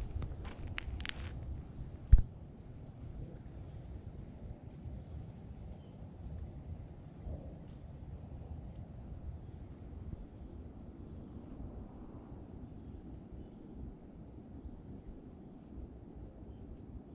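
Short, high, thin chirping trills of a small wild creature repeat every second or two over a low outdoor rumble. A few clicks come near the start, and one sharp knock about two seconds in.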